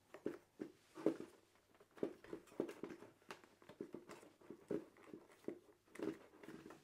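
Filters being pushed by hand into the plastic housing of a Trend Air Shield Pro powered respirator helmet: a faint, irregular string of soft plastic taps, clicks and rubbing.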